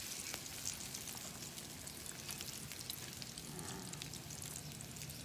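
Coated stingray pieces deep-frying in hot oil in a pan: a steady sizzle with fine crackling.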